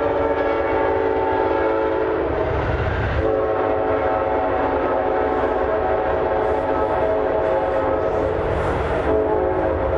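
Amtrak passenger train passing at speed, its locomotive horn blowing a long chord with a short break about two and a half seconds in, over the steady low rumble of the passing cars.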